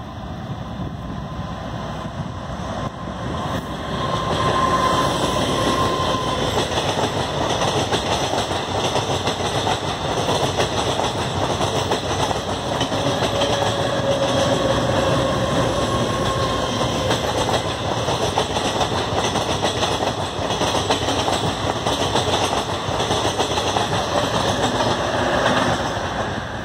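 Rohtak–Rewari DEMU, a dual-fuel diesel-CNG multiple unit with two power cars, passing close by on the track. The noise builds about four seconds in as the train nears, stays loud while the power cars and coaches go by, and falls away near the end once the rear power car has passed.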